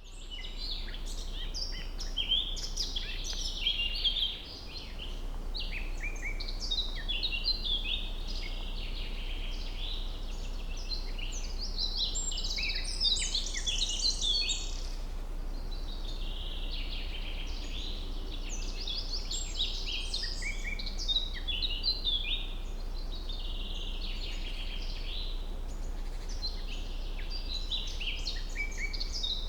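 Birds chirping and singing without a break, many quick high calls and trills overlapping one another, over a steady low hum.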